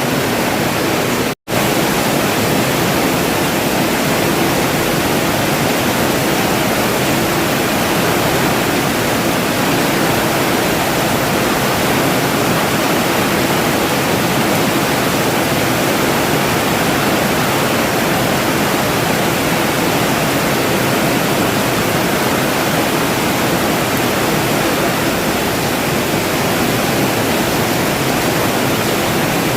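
Steady rain falling, an even hiss with no let-up. It cuts out for an instant about a second and a half in.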